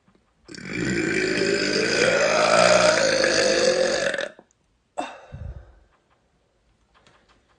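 A woman's long, loud burp lasting nearly four seconds, its pitch rising and then sinking, followed about a second later by a short, sharp sound.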